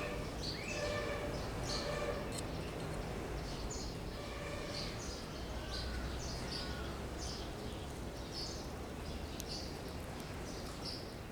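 Sparrows chirping in short, repeated notes, with a few lower calls in the first seconds, over a steady low background rumble.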